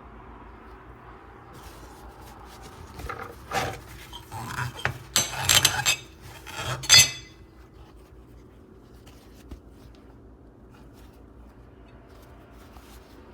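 Hard kitchen items clattering and clinking as they are handled: a run of knocks and rattles from about three to seven seconds in, the loudest near the end of it, over a faint steady hum.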